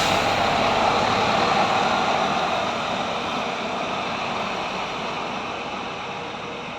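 A coach bus pulling away. Its engine and road noise run steadily, then fade gradually over the last few seconds as it leaves.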